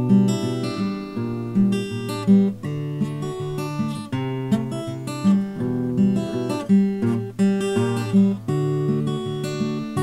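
Acoustic guitar music, picked notes mixed with strums, each note starting sharply and ringing on.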